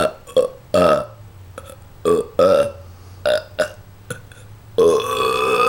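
A person burping on purpose several times in quick succession: short separate burps, then a longer drawn-out one near the end, burped in answer to a hummed 'da da da da dum' tune.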